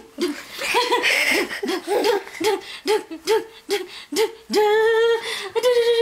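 A toddler laughing in quick, repeated high-pitched bursts while being tickled, breaking into a long high squeal about four and a half seconds in and another near the end.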